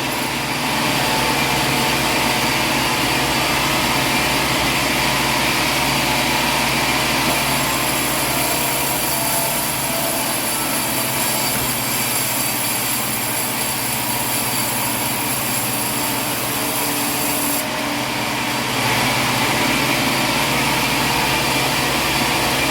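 Sawmill machinery running steadily with a continuous mechanical din. The high end of the noise shifts about seven seconds in and again around eighteen seconds.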